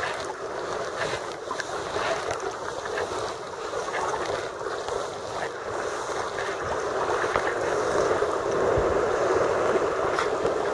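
Sea water splashing and rushing around a sea kayak's hull and paddle blades while paddling through choppy water. It grows louder in the second half.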